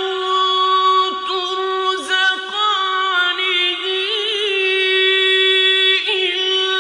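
A single voice chanting Quran recitation in melodic tajweed style, drawing out long held vowels with quavering ornaments, the strongest about four seconds in.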